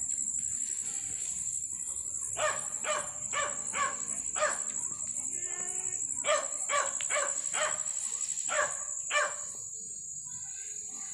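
Dog barking repeatedly, about a dozen short barks in quick, uneven succession that stop near the end; the dog is hungry and waiting for its food. A steady high insect buzz runs underneath.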